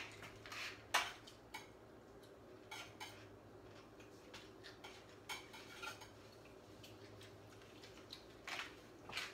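Scattered light clinks and knocks of dishes and utensils being handled at a kitchen counter, the sharpest right at the start and about a second in, over a faint steady hum.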